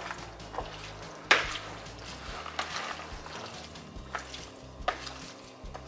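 Wooden spoon stirring and tossing pasta salad in a plastic mixing bowl: soft, irregular clicks and scrapes, the loudest a little over a second in.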